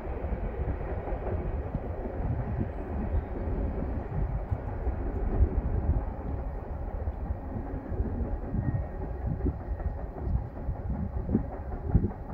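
Empty coal train's hopper cars rolling on the rails some way off: a steady low rumble with scattered clanks.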